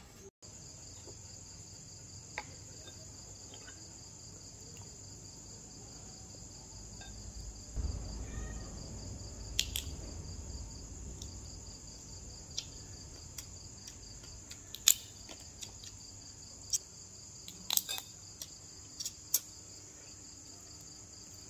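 Steady high chirring of night insects, with scattered short sharp clicks and a brief low rumble about eight seconds in.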